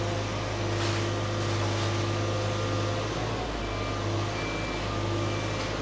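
Cat 301.7D mini excavator's diesel engine running steadily, a constant low drone, with faint higher whining tones from the machine coming and going in the second half.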